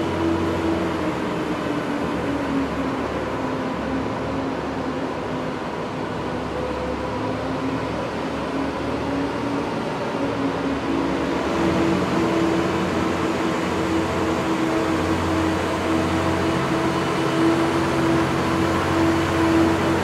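Zamboni ice resurfacer's engine running steadily, its hum dropping slightly in pitch a couple of seconds in and climbing back about eleven seconds in, over a steady hiss.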